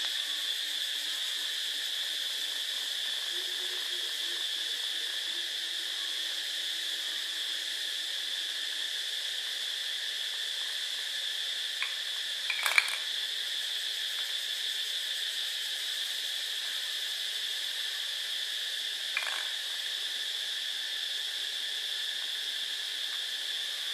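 Steady high insect chirring, crickets, at an even level. Brief knocks stand out about 13 seconds in and again near 19 seconds, as the kitten knocks a small plastic bottle about on the tile floor.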